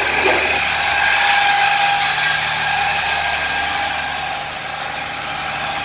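Large vehicle's engine running steadily, a low drone with a steady whine on top; it eases off slightly about two thirds of the way through.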